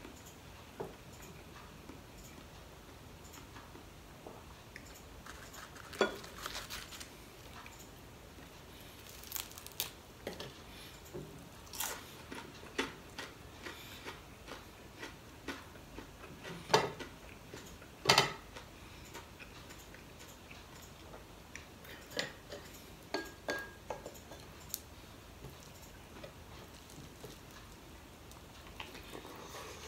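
A person eating with bare hands, picking apart fried fish and rice on a plate, with chewing and scattered clicks and taps against the dishes. The two loudest are sharp knocks a little past halfway.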